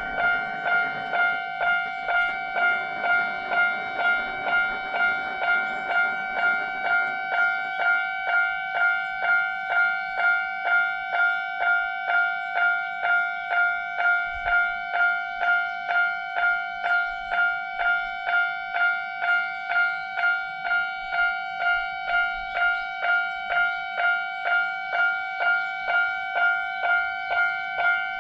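Japanese level-crossing warning bell ringing its repeated electronic "kan-kan" strike, about one and a half strikes a second, steady in pitch.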